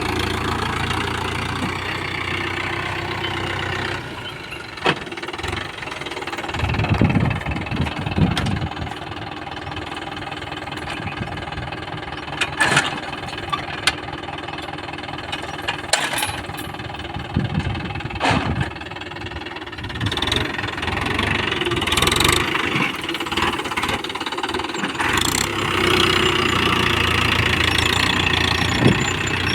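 Mahindra Yuvo 415 DI tractor's four-cylinder diesel engine running steadily under load, pulling a two-mouldboard reversible plough through hard soil. Several sharp knocks sound over the engine.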